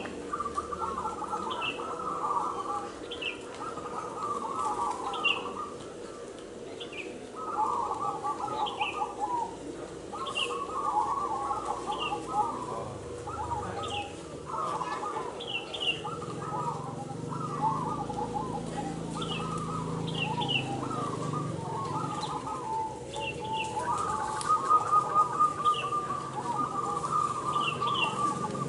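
Many caged zebra doves (perkutut) cooing at once in overlapping, rhythmic phrases. A short, high, falling chirp repeats every second or two above them.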